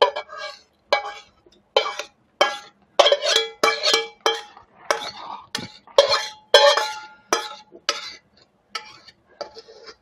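Spatula knocking and scraping against a metal wok as chutney is scraped out into a steel bowl: repeated sharp clanks, roughly two a second, each ringing briefly.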